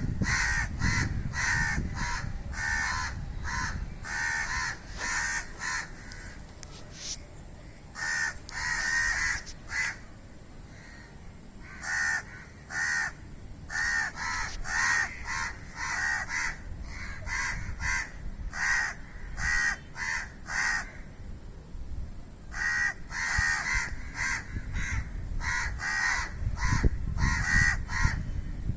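Crow cawing in long runs of short, harsh caws, two or three a second, with a short lull about a third of the way through and another past two-thirds.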